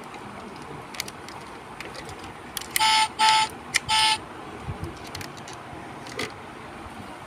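The electronic sound chip in a diecast Mitsubishi Pajero toy SUV plays a recorded car horn: three short beeps about three seconds in. A few small plastic clicks come from the model's door and bonnet being opened.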